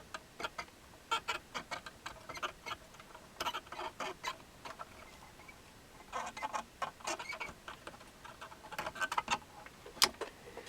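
Irregular light clicks and taps of small hand tools working on the controller's circuit board while the MOSFET is being desoldered. There is a sharper click at the start and another near the end.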